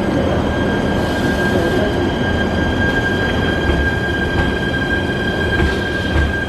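Shinano Railway SR1 series electric train moving out of the station, its running rumble overlaid by a steady high-pitched squeal held through most of the stretch, with a couple of low thuds near the end.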